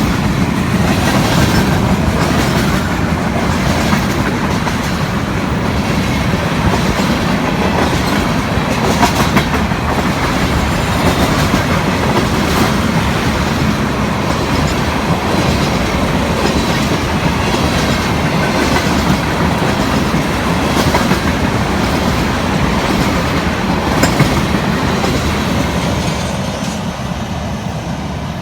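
Florida East Coast freight train's cars rolling past close by, wheels clicking steadily over the rail joints with a little wheel squeal. The sound begins to fade near the end as the train draws away.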